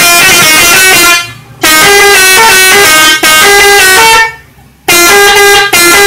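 Six-trumpet telolet bus horn set, driven by a Bluetooth horn module, playing melodic multi-note phrases in loud blasts. The tune breaks off briefly about a second in and again just after four seconds, then starts up again.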